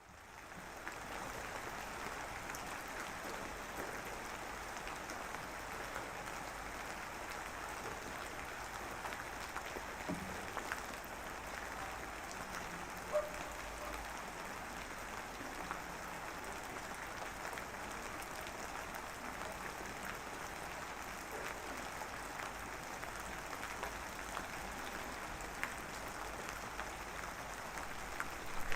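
Steady rain falling on a surface: an even hiss of many small drop ticks that fades in at the start, with one louder tap about halfway through.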